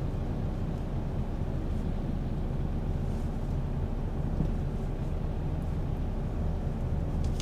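Steady low rumble of engine and road noise heard from inside a moving car's cabin.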